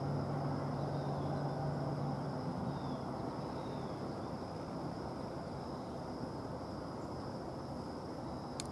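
Distant NJ Transit PL42AC diesel-electric locomotive running: a low steady engine drone under a rumble of outdoor noise. The drone fades out two to three seconds in and the overall sound slowly drops.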